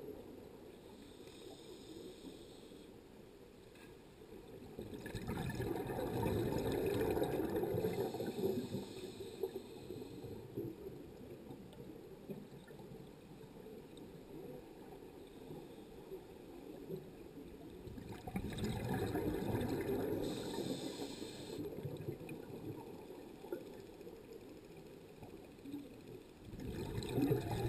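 Diver's scuba exhaust bubbles heard through an underwater camera housing. They come in long swells of gurgling and rumbling a few seconds each, about every 12 seconds, with quieter water hiss between and a brief higher hiss of breathing gas now and then.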